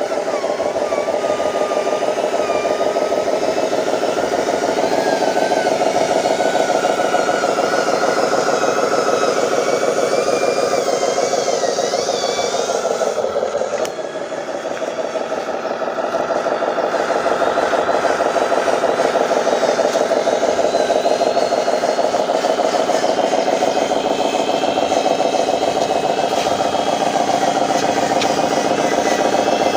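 Radio-controlled dump truck running under load: a steady mechanical drone with a thinner whine that wanders up and down with the throttle, dropping briefly in pitch and level about halfway through before building back up.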